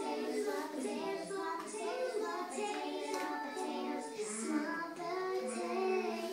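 A children's song from a television cartoon: child-like voices singing a melody with musical accompaniment.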